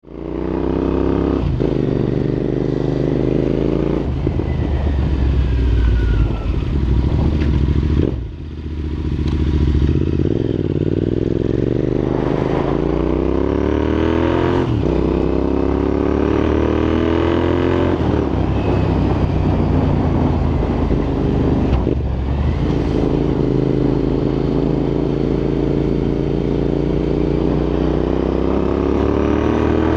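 Royal Enfield INT650's 648 cc parallel-twin engine through Red Rooster aftermarket exhausts, ridden and pulling up through the gears. The exhaust note climbs in pitch and drops back at each shift, about six or seven times. Wind rushes over the helmet-mounted microphone.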